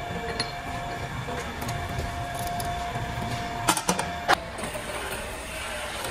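Steady workshop machinery hum, with several sharp metal clanks close together a little under four seconds in as a steel workpiece is handled in a stopped metal lathe's three-jaw chuck.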